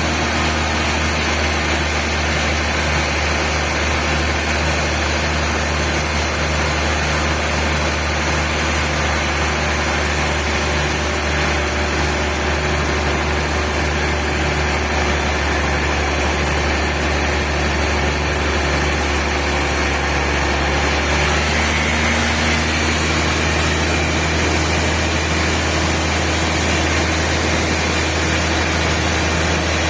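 Sawmill machinery running steadily: a continuous low hum under a broad hiss that doesn't change.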